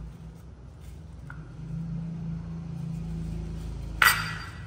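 A metal spoon clinks once, sharply, against a small bowl about four seconds in and rings briefly, with a fainter tap about a second in, over a low steady hum.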